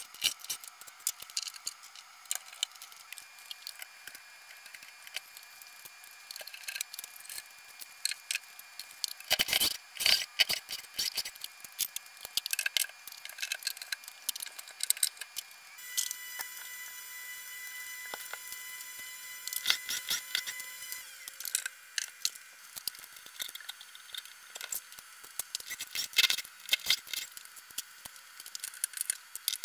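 Ceiling-fan mounting hardware being taken down from the joists: scattered clicks, rattles and knocks of screws and metal parts, with a cluster of louder knocks about nine to eleven seconds in. Past the middle, a cordless drill-driver runs steadily for about five seconds.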